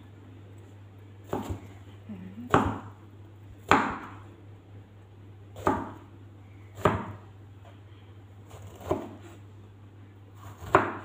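Kitchen knife chopping through peeled patola (sponge gourd) and knocking on the cutting board: about seven separate sharp chops, a second or two apart.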